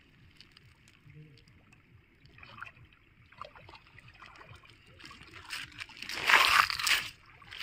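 Shallow river water splashing and sloshing around a wader's legs as a fishing net is paid out into it: a few faint splashes, then louder splashing for about a second around six seconds in.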